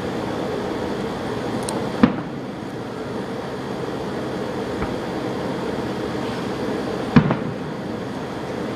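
Two fireworks bursts bang, about five seconds apart, over a steady rumbling background noise.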